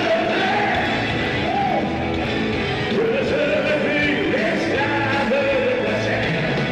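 Live rock band playing, with a male lead singer's voice held and bending in long sung lines over guitars and drums.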